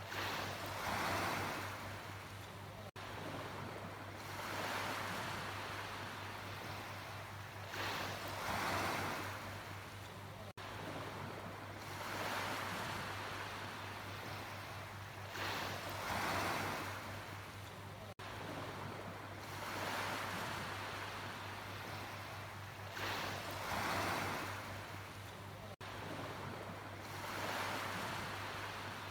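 Sea waves breaking and washing up, each surge swelling and falling away about every four seconds.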